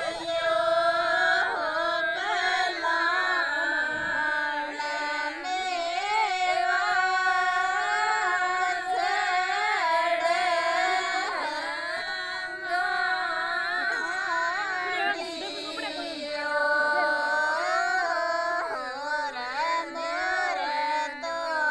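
A woman singing a Marwari (Rajasthani) desi folk song for Sawan Teej: long held notes with wavering ornaments, broken by short pauses between phrases.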